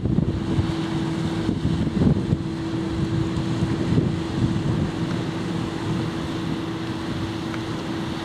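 Pilot boat's engine running with a steady drone as the boat pulls away, under gusty wind buffeting the microphone.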